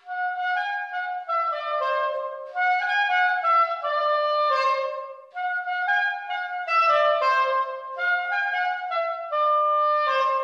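Soprano saxophone playing a short run of notes that steps downward, started over about four times, in a room with hard brick walls.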